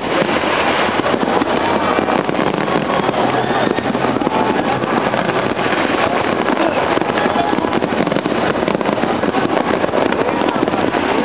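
Large aerial fireworks display going off without a break: a dense, continuous run of shell bursts and crackling at a steady, loud level.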